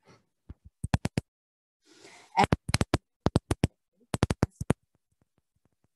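A series of sharp, short clicks in irregular quick clusters, with a soft rustle about two seconds in.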